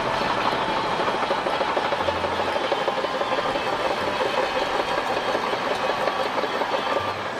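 Toy bulldozer running: a steady, rapid plastic clatter that stops abruptly near the end.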